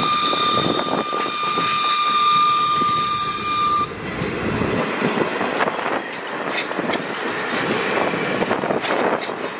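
Passenger train passing close by on jointed track, a red caboose leading and wooden-bodied heavyweight coaches behind. A steady high tone with overtones sounds for about the first four seconds and cuts off abruptly as the caboose goes by, leaving the rumble and clatter of the coach wheels.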